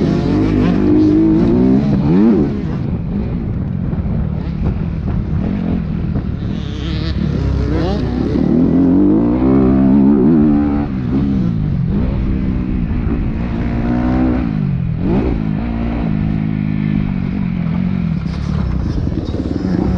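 Motocross dirt bike engine heard from the bike itself, revving hard under acceleration and backing off again and again. Its pitch climbs, then drops sharply several times as the throttle is shut and gears change, with deep dips at about 2, 11 and 15 seconds in.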